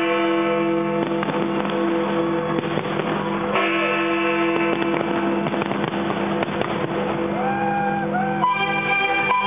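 Fireworks-show music with held chords played over loudspeakers, mixed with the crackles and bangs of fireworks bursting throughout.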